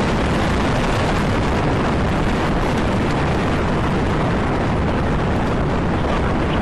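Delta IV Heavy rocket's three RS-68 engines at full thrust just after liftoff: a loud, steady, dense roar.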